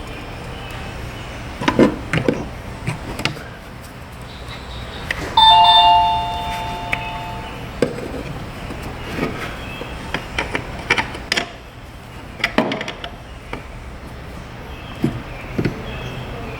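Hand-tool clicks and knocks as the fittings on a car's rear A/C lines are snugged up with a ratchet. About five seconds in, a loud two-tone metallic ring sounds and fades over about two seconds.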